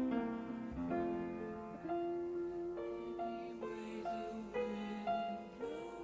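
Slow, soft piano-led music with long held notes changing every second or so, some sliding in pitch.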